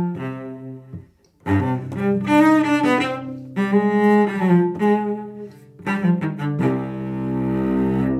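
Cello music: a bowed string melody that pauses briefly about a second in, resumes, and ends on a long held chord that fades out.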